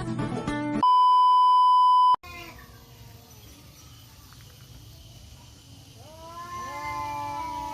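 Guitar music ends under a second in and is cut off by a loud, steady beep tone lasting about a second and a half. After a few seconds of quiet, a tomcat starts a long, drawn-out yowl, the threatening caterwaul of a male cat squaring up to another.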